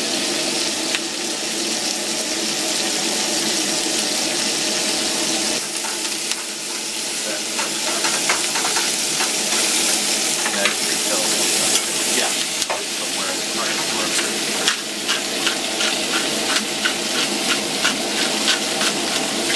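Elk steaks and sliced peppers and onions sizzling in frying pans on a gas camp stove, with a spatula stirring and scraping through the vegetables. The frying hiss is steady, with crackles and pops coming thicker in the second half.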